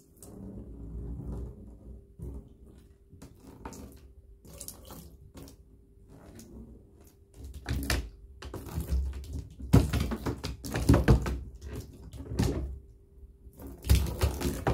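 Water poured from a glass into a bathtub while a cat paws and splashes at the stream, giving irregular splashes and knocks. The splashing grows loud from about eight seconds in and again near the end.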